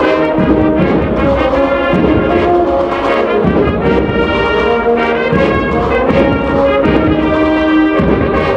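A Holy Week agrupación musical (marching band of trumpets, cornets, trombones and drums) playing a slow processional march. It plays sustained brass chords over low drum strokes every second or two.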